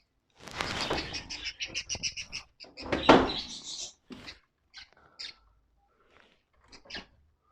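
Parrot calling in a rapid run of harsh, repeated squawks for about three and a half seconds, loudest about three seconds in, then a few short, separate calls.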